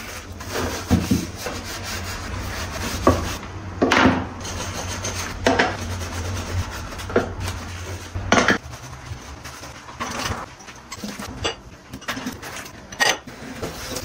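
Washing up by hand at a stainless steel sink: a sponge scrubs wooden boards and lids, with irregular knocks of boards and containers against each other and the sink, and water splashing as they are rinsed.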